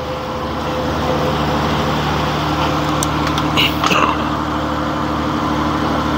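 Purse-seine fishing boat's engine running steadily, a constant low drone with a steady wash of noise over it. A brief sharper noise about three and a half seconds in.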